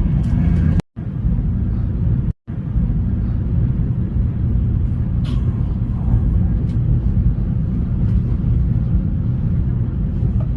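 Steady low rumble of a Taiwan High Speed Rail bullet train running, cut by two brief drops to silence about a second in and again about a second and a half later.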